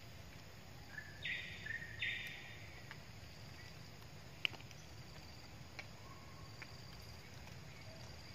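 Steady low outdoor background noise, with two short harsh buzzes one after the other about a second in, then a few faint scattered clicks.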